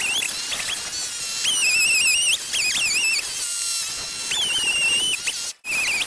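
Chainsaw sound sped up many times over by the time-lapse, heard as a high, warbling whine whose pitch wobbles and jumps up and down. The sound cuts out briefly near the end.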